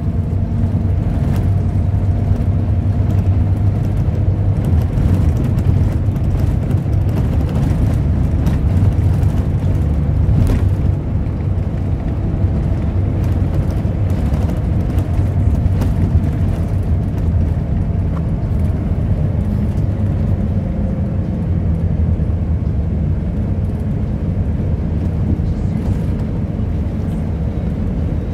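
Steady low rumble of a moving road vehicle heard from inside its cabin, engine and tyre noise running at an even cruising pace.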